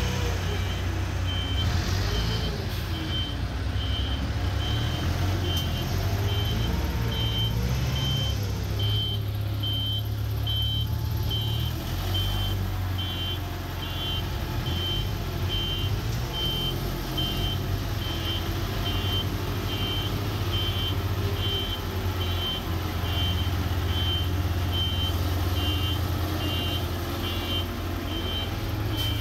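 Rough-terrain forklift's engine running with a steady low rumble, its speed rising and falling a little, while a reversing alarm beeps about once a second.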